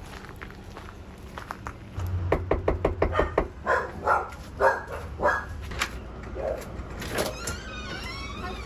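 A quick run of knocks on a front door, followed by a dog barking about four times inside the house in answer. Near the end the door is opened.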